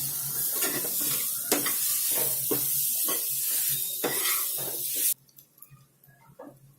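Ground green pea stuffing frying in hot oil in a pan, sizzling steadily while a spoon stirs and scrapes it, with frequent short scrapes and taps against the pan. The sizzle cuts off suddenly about five seconds in.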